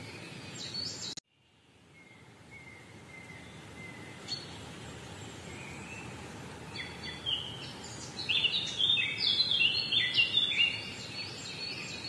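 Birds chirping and singing over a steady background hiss. The sound drops out suddenly a little over a second in and fades back up, and the birdsong becomes loud and busy near the end, with many quick chirps in a row.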